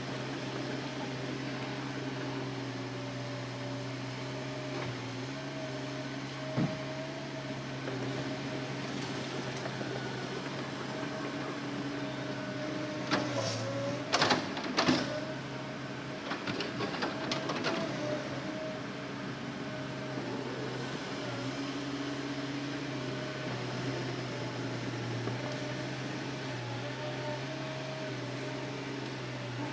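Hitachi Zaxis excavator's engine and hydraulics running steadily, with a cluster of sharp knocks and clatter about halfway through, followed by a few lighter ones.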